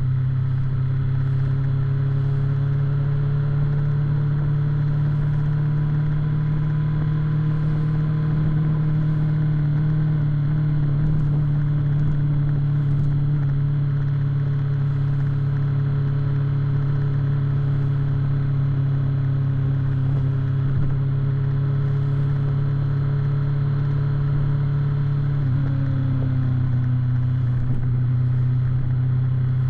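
BMW S1000 motorcycle's inline-four engine running at a steady cruise, heard from on the bike. The engine note holds nearly constant, shifting slightly about three-quarters of the way through.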